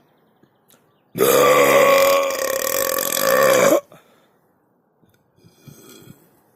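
A long, loud burp lasting about two and a half seconds, starting about a second in and cutting off sharply.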